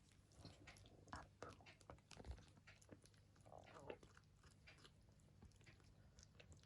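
Faint, irregular wet clicking and chewing of a small kitten eating, with a brief soft sound about three and a half seconds in.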